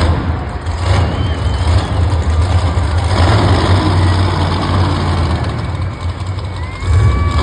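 Monster truck's supercharged V8 engine running hard and loud throughout, with a deep steady rumble and surges about a second in and again near the end.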